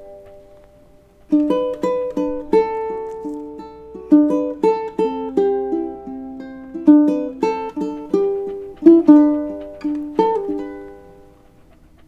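Solo ukulele playing a tune of plucked notes and chords. It starts about a second in after a short lull and dies away near the end.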